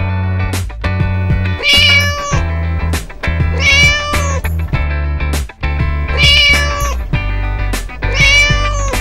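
A cat meowing four times, roughly every two and a half seconds, each call rising and then falling, over a children's backing track with a steady bass line.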